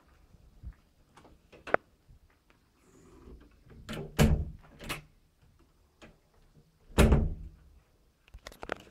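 A glass-panelled entrance door being opened and shut: its metal handle and latch click, with a heavy thud about four seconds in and another about seven seconds in as the door closes, then a few lighter clicks near the end.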